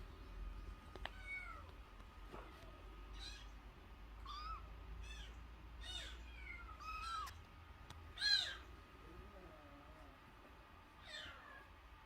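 Very young unweaned kitten mewing over and over: short, high cries that fall in pitch, roughly one every second, with the loudest cry a little after eight seconds in.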